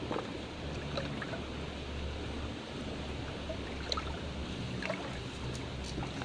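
Steady rushing of water, with a few faint clicks scattered through it.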